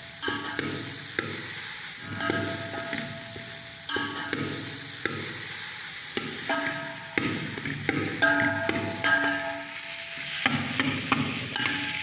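A spoon stirring and scraping a pan of samosa filling frying in ghee, with a steady sizzle under it. The scrapes come as short squeaks every half second to a second.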